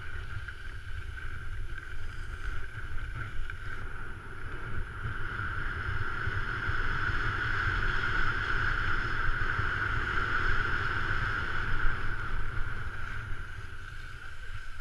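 Skis sliding and scraping over hard-packed snow on a downhill run, with wind rumbling on the microphone; the hiss swells louder through the middle of the descent.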